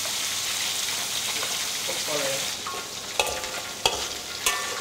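Thick red sweet-and-sour sauce sizzling in a steel wok as a metal spatula stirs it. In the second half the spatula strikes the wok three times, sharp clanks that ring briefly.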